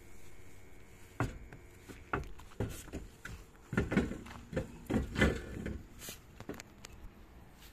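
A steel wheel and tyre being handled and pushed onto a Volkswagen Kombi's front hub: a string of irregular knocks and clunks, busiest and loudest a little past the middle.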